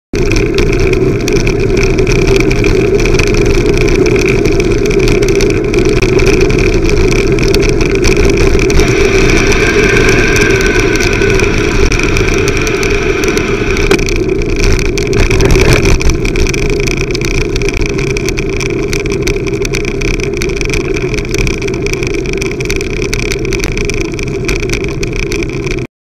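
Loud, steady wind and road noise on a bicycle-mounted camera's microphone while riding, with a brief rattle about 14 to 16 seconds in as the bike rolls over a cattle grid.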